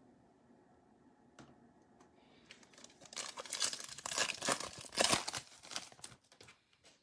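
Trading card pack wrapper being torn open and crinkled by hand, a dense crackling that starts about two and a half seconds in and stops about a second before the end.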